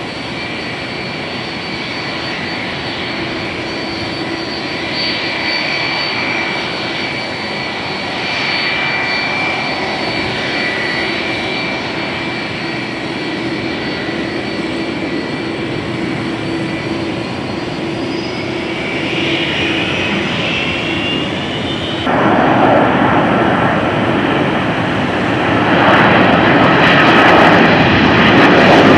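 Boeing 777 jet engines whining at low thrust as the airliner taxis and turns, with the whine rising in pitch about 19 seconds in. About 22 seconds in the sound cuts abruptly to the louder roar of another Boeing 777 climbing out at takeoff thrust, swelling further near the end.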